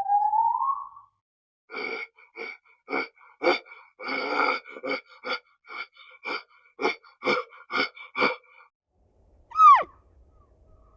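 A farm animal giving a rapid series of about a dozen short, harsh calls, followed by one sharply falling call near the end.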